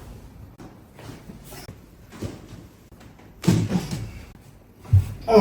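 Dull knocks and thumps: a short burst of knocking about three and a half seconds in and a single sharp, low thump near the end.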